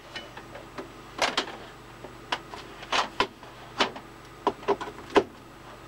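Irregular light clicks and knocks of cables and plugs being handled and fitted at a home computer setup, over a faint steady hum.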